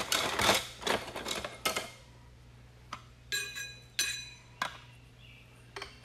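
Thin metal stage cups of a multistage booster pump clinking and clattering as one is set onto the stack on the pump shaft, with a brief metallic ring about three seconds in and a single knock a little later.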